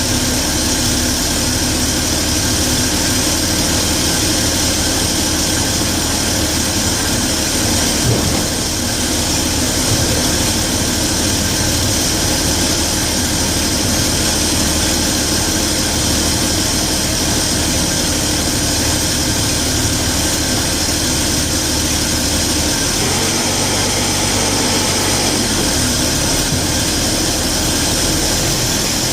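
1967 Chevy G10 van's 250 inline-six engine running steadily. Its low rumble shifts about 23 seconds in.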